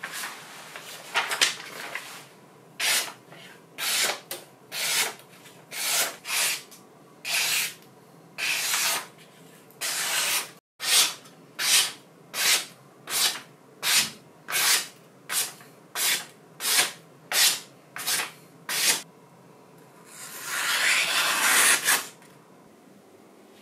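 A home-forged knife making repeated short cutting strokes through a material, about twenty in all. They quicken to roughly two a second in the second half, and one longer stroke comes near the end.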